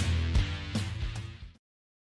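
Background music with guitar and a steady beat, fading out and stopping dead about one and a half seconds in, followed by silence.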